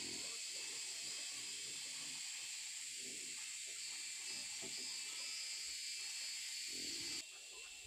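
A steady, high-pitched drone of forest insects, with soft low grunts and snuffling from young wild boars. The whole sound drops abruptly near the end.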